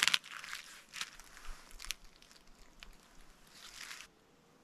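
Crunching steps in deep powder snow: one loud crunch at the start, then a few shorter, fainter crunches. The sound falls away to quiet about four seconds in.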